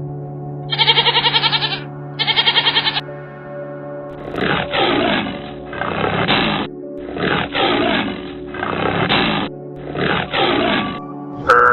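Two short, quavering bleats, then a lion roaring about five times in a row, each roar rough and falling, over steady background music.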